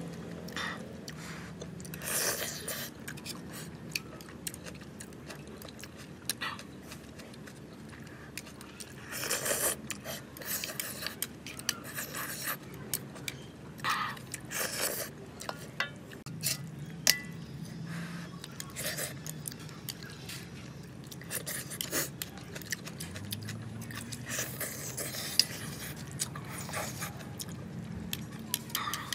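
A person chewing a mouthful of stir-fried noodles, with chopsticks and a metal spoon clinking and scraping against a metal wok in short, scattered clicks.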